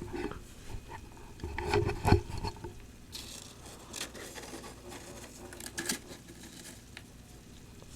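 Humidifier frost being scraped and crunched: irregular gritty scrapes and crisp clicks, the loudest cluster about two seconds in.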